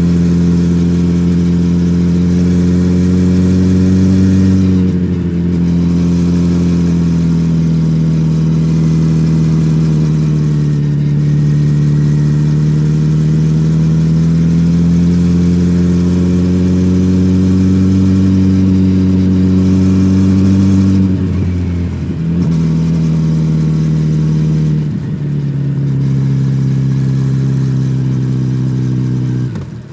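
Kawasaki Z900RS inline-four engine through its stock exhaust, running under way on the road. The pitch climbs slowly, drops sharply about five seconds in, dips and climbs again, then drops and picks up several times near the end.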